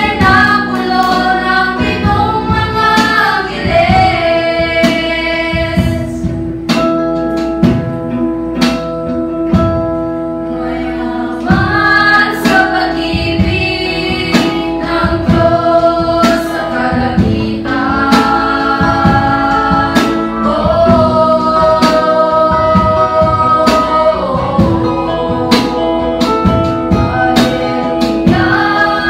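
Mixed choir of men and women singing a Tagalog hymn, accompanied by guitar strummed in a steady rhythm.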